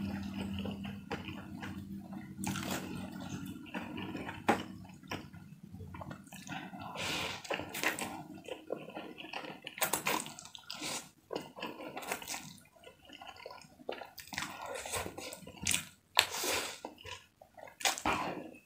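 A person slurping and chewing mouthfuls of instant fried noodles: wet slurps and smacks in irregular bursts, with a few sharp clicks among them.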